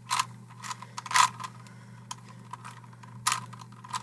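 Rubik's Cube being turned by hand during a solve: irregular plastic clicks and clacks of the layers twisting, the loudest about a second in, over a low steady hum.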